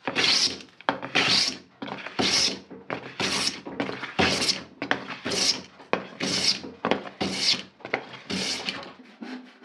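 Hand smoothing plane taking shavings off a glued-up wooden board, with about nine long swishing strokes, roughly one a second, as the board is planed flat and smooth to final size.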